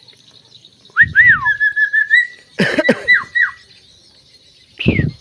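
Tame Javan myna whistling and mimicking a cough: from about a second in, whistled notes that swoop up and down, then a quick run of short level whistles; a rough cough-like burst with a few down-slurred whistles follows, and another cough-like burst comes near the end.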